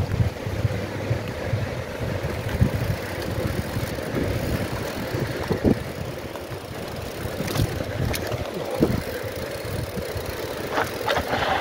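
Mountain bike ridden over a rough dirt trail: a steady rumble of tyres and rattling with wind buffeting the microphone, broken by irregular knocks and clicks that bunch up near the end.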